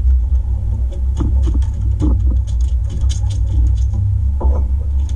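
Freshly landed albacore tuna beating against the boat's deck, an irregular patter of quick taps starting about a second in, over a steady low rumble.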